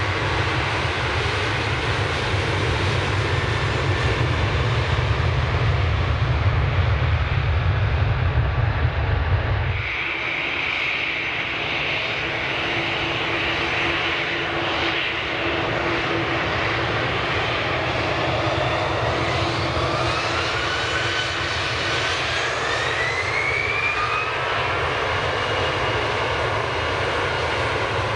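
Two jet airliners spooling up their engines for takeoff, one after the other, with an abrupt cut about ten seconds in. First a Ryanair Boeing 737-800's CFM56 turbofans, a deep rumble that grows louder. Then an Airbus A321's turbofans, a high steady whine with a whine rising in pitch as the engines wind up.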